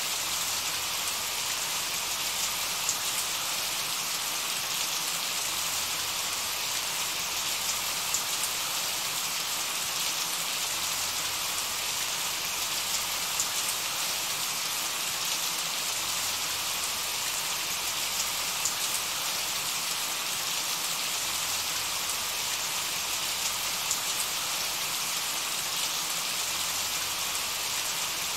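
Steady rain: an even hiss of falling drops, with scattered louder individual drop ticks.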